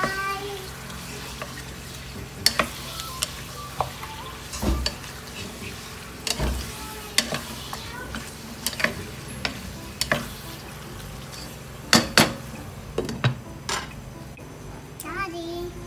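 Wooden spoon stirring chicken pieces in a nonstick pot, knocking and scraping irregularly against the pot over a steady sizzle of the chicken frying. Two sharp knocks about twelve seconds in, with the glass lid going onto the pot near the end.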